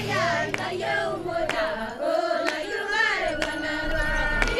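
A group of women singing together, with sharp hand claps about twice a second.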